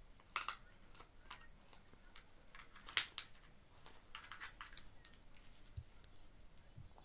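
Kittens' claws clicking and scratching on a leather armchair: a scatter of short taps and scrapes, the sharpest about three seconds in and a quick cluster just after four seconds.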